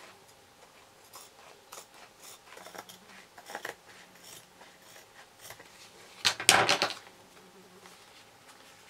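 Scissors snipping and a card with adhesive denim strips being handled on a wooden table, along with the cut-off denim scraps: scattered small clicks and rustles, with one louder rustle lasting under a second about six and a half seconds in.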